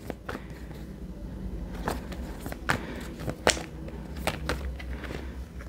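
A deck of tarot cards being shuffled and handled: a scattered series of sharp card snaps and taps, the loudest about three and a half seconds in, over a faint low hum.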